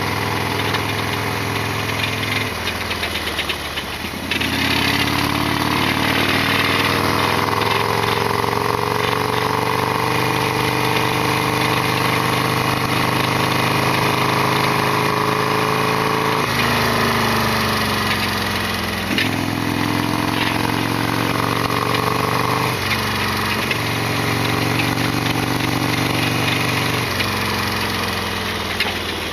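Harley-Davidson Sportster XL1200R V-twin motorcycle engine running while riding. The pitch climbs slowly for a long stretch, then changes in steps several times in the second half as the revs shift.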